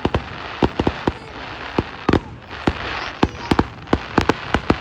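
Fireworks going off: an irregular run of sharp bangs, at times several a second, over a steady background noise.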